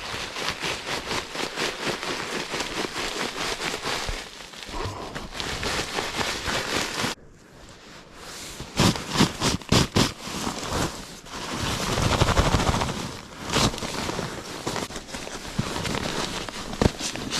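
Camping gear being handled and packed: dense, rapid rustling and crackling, with a run of louder knocks about nine seconds in.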